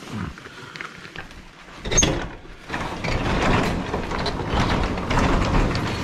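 A door clatters open about two seconds in, then a steady rush of storm wind and freezing rain.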